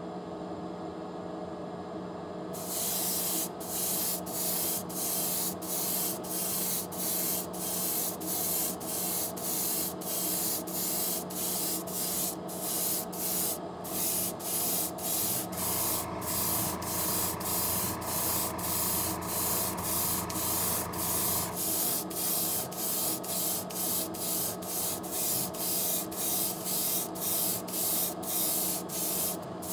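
Gravity-feed airbrush (GSI Creos Procon Boy) spraying lacquer paint in short pulsed bursts of hiss, about one and a half a second, starting a couple of seconds in. A steady mechanical hum runs underneath, and a deeper hum joins for about six seconds midway.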